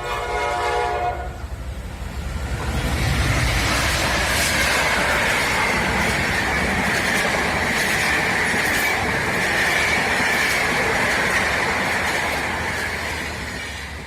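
A train sounds its horn briefly at the start, then runs past loudly, with rushing wheel noise, a steady high whine and the clicking of wheels over rail joints.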